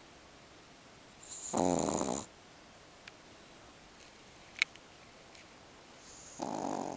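A sleeping pet snoring: two snores about five seconds apart, each about a second long, with a small sharp click between them.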